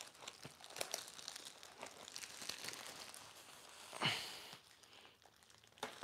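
Clear plastic bag wrapping crinkling and rustling as a heavy coffee grinder is lifted out of its foam packing, with a loud exhale of effort about four seconds in.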